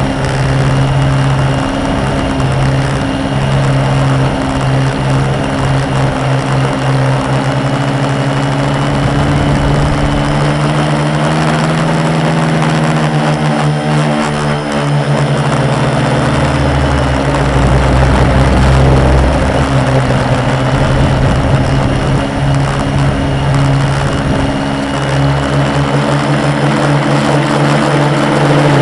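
A 450-size quadcopter's four MultiStar 2212 920kv brushless motors spinning 10x4.5 propellers in flight: a loud, steady multi-tone buzz whose pitch bends up and down as the throttle changes, most around the middle. A low rumble joins for a few seconds just after that.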